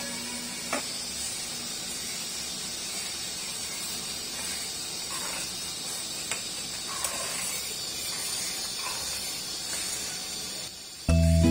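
Fish curry gravy sizzling steadily in a kadai as it cooks down, with a few clicks of a metal spatula against the pan. Music starts suddenly just before the end.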